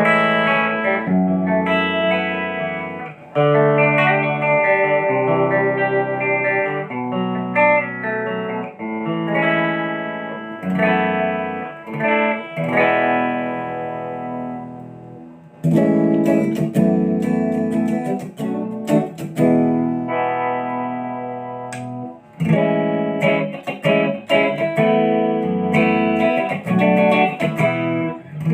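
KGarage white Les Paul-style electric guitar played through an amp, with chords and single notes left to ring out. About halfway through the playing turns choppier, with short, sharp strummed strokes.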